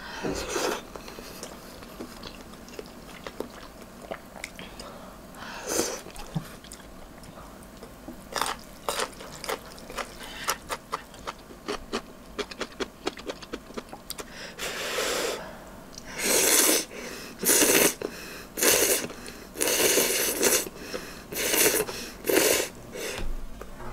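Instant ramen noodles being slurped and chewed: quiet chewing clicks through the first half, then a run of loud slurps about one a second in the second half.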